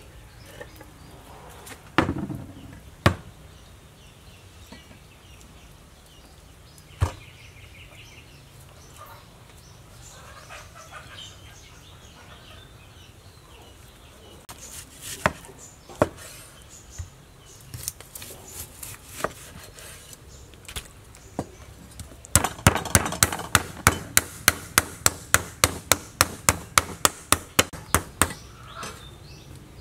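Meat cleaver chopping chicken breast on a wooden cutting board: a few scattered knocks, then a fast, even run of chops, about four a second, over the last several seconds.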